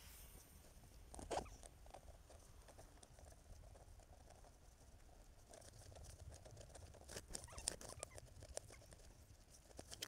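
Bicycle ridden along a paved path, heard faintly: a low rumble with scattered ticking and clicking, heaviest about seven to eight seconds in. The clicking is a stick caught in the rear wheel.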